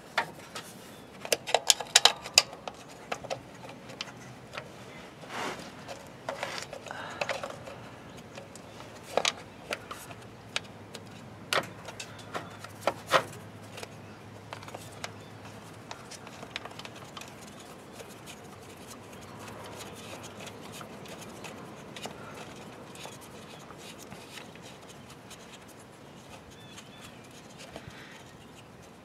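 Hands handling and seating a front-axle 4WD actuator in the front differential housing: scattered clicks and knocks of plastic and metal parts, thickest in the first few seconds, then quieter.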